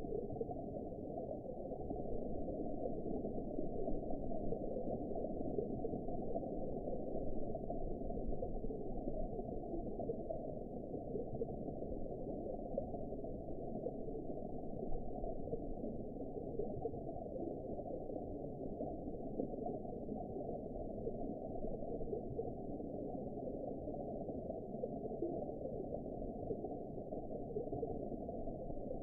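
Steady, muffled underwater ambience: an even, deep rush of water noise with all the treble cut away, unchanging throughout.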